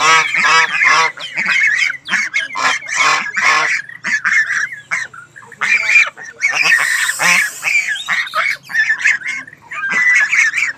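Goose honking: a long run of short, nasal honks in quick succession with brief gaps.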